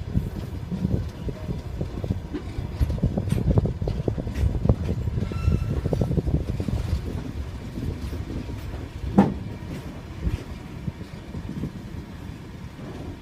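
Train wheels clattering over rail joints and points as the train slows on arrival. The knocks are dense at first and thin out and quieten, with one sharp clank about nine seconds in and a brief faint squeal a little after five seconds.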